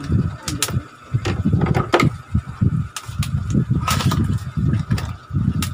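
Cardboard shipping box being handled and cut open with scissors: irregular scraping and rustling of cardboard with a series of sharp clicks and snips.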